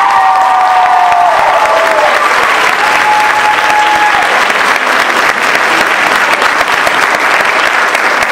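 Audience and performers applauding, loud and steady.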